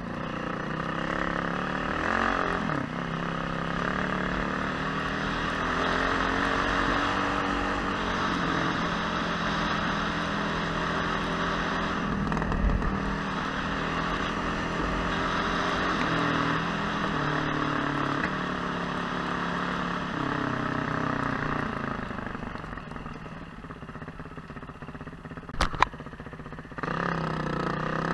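Motorcycle engine running under way, its revs rising and falling. Some way past the middle it drops back to a quieter run for a few seconds, with a sharp click, then picks up again with rising revs near the end.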